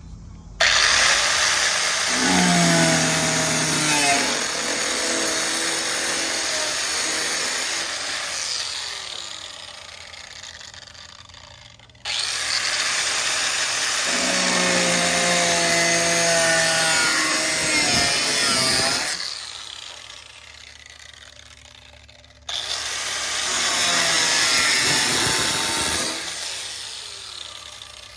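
A power cutting tool cutting rusted sheet metal out of an old GMC truck's body, in three runs of several seconds each. Each run starts suddenly and winds down with a falling pitch when the tool is let off.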